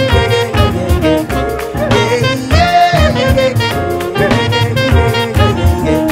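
Jazz band playing: a saxophone carries a wavering melody over piano, double bass and drums.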